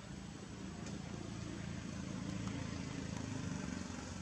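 Steady low rumble like a motor vehicle engine running, swelling slightly in loudness through the middle.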